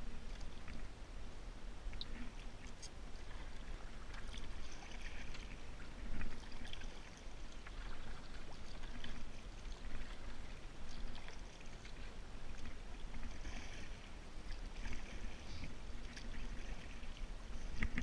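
Canoe paddle strokes in still swamp water: a swish and splash every second or two as the paddle pulls through the water beside an aluminum canoe, with a few sharp knocks, the loudest about six seconds in and one at the very end.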